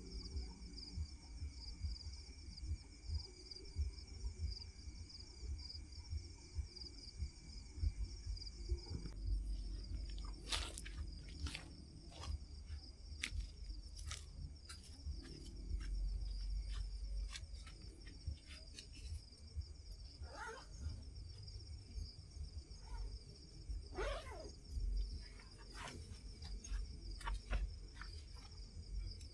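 Insects chirring steadily in a high, pulsing drone over a low rumble, with scattered sharp clicks and knocks starting about a third of the way in.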